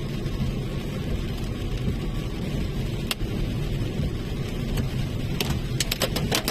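Car cabin road noise while driving: a steady low rumble. From about five seconds in, sharp ticks of rain or hail hitting the car start and quickly grow dense.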